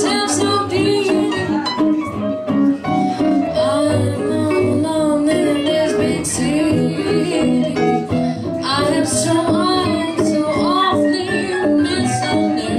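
Live jazz trio music: an electric stage keyboard and a guitar playing, with no sung words.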